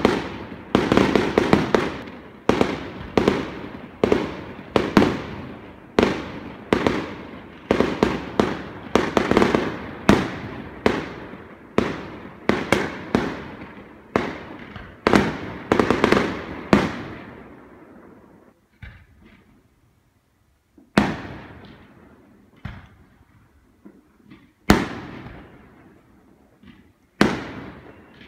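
Aerial firework shells bursting in a rapid barrage of sharp bangs, each trailing off in an echo. About two-thirds of the way through the barrage thins out to a few single bangs a couple of seconds apart.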